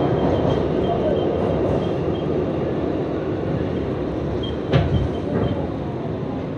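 New York City subway train running on the rails, a steady rumble that slowly gets quieter, with a single sharp clank about five seconds in.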